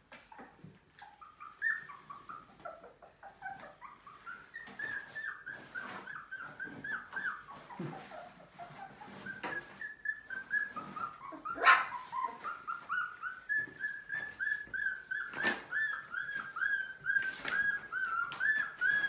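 Young Aussiedoodle puppies whining and yelping in a rapid chorus of short, high cries that each drop in pitch, getting busier after a few seconds. A few sharp rustles of newspaper being spread on the floor come through near the end.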